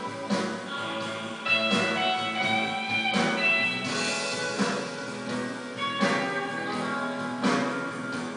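Background music led by guitar, with a strong beat about every second and a half.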